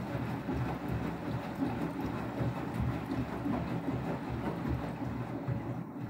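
Beko WTK104121W washing machine tumbling its drum during a rinse, with water and laundry sloshing in the drum in an irregular low churning.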